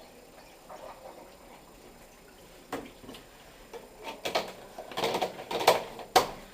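Knocks, clicks and scraping from handling a washing machine's detergent drawer and softener bottle: a click about two and a half seconds in, then a run of short knocks and scrapes, ending in a sharp knock near the end.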